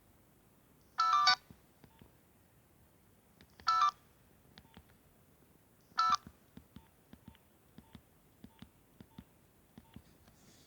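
A Nokia 6070 mobile phone sounds three short bursts of electronic tones, each a fraction of a second and roughly two and a half seconds apart, with faint key clicks in between.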